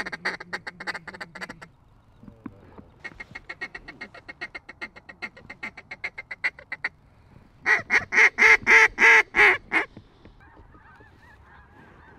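Waterfowl calling in rapid runs of short honks and quacks, one run after another; the loudest run comes about eight seconds in. After it, a faint wavering chorus like a distant flock of geese.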